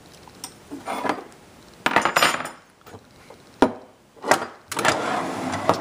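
Metal hand tools (wrenches, sockets and Allen T-handles) being picked up and set down on a workbench, clinking and clattering in several separate bursts, the last one drawn out for about a second near the end.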